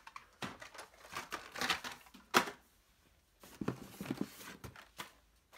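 Blister-carded Hot Wheels cars being handled: crinkling plastic blisters and cardboard backing cards rustling and clacking in irregular bursts, with one sharp clack about two and a half seconds in.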